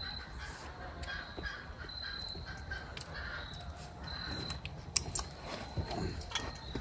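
Crows cawing in the distance, with a faint high chirp repeating every couple of seconds and two sharp clicks close together about five seconds in.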